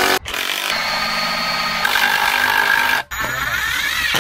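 Cordless drill driving screws into timber, the motor running steadily for about three seconds. After a brief break, a second, shorter run follows, with the motor note rising.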